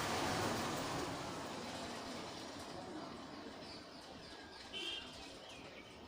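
A rushing noise that fades over the first few seconds, then birds chirping faintly, with one louder chirp near the end.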